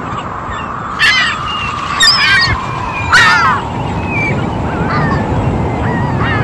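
Seagull cries: three loud calls about a second apart, followed by fainter ones, over a steady rushing background noise.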